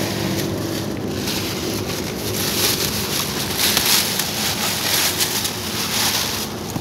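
Thin plastic protective seat sheeting crinkling and rustling unevenly as it is pulled off a car's rear seat, over a low steady hum.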